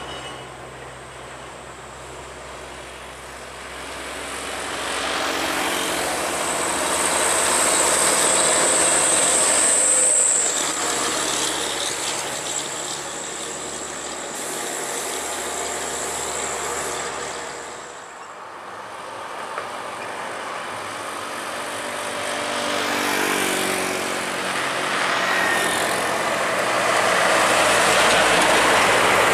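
Diesel trucks driving past one after another, each engine and its tyre noise swelling and fading. A high whine joins for a few seconds early on. The loudest pass comes near the end, as a light Isuzu Elf truck goes by close.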